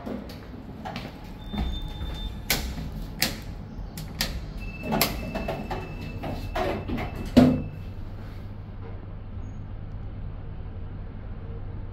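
1994 Express passenger lift: clicks and knocks, a short beep, then a longer beep of about three seconds, and a loud thump about seven and a half seconds in as the sliding car doors shut. After that the car sets off downward with a steady low hum.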